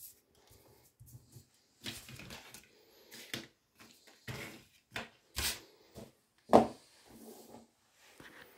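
Scattered rustles and light knocks of paper leaflets and a cardboard shipping box being handled and shifted on a table, each one brief, with short gaps between. The loudest comes about six and a half seconds in.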